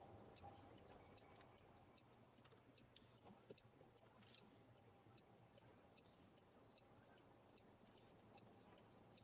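Car turn-signal indicator ticking steadily, about two to three ticks a second, over faint low road and cabin hum.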